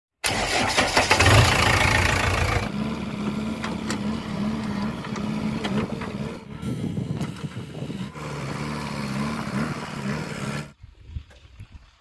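JCB backhoe loader's diesel engine starting with a loud burst, then running steadily with a wavering hum. The sound cuts off suddenly near the end.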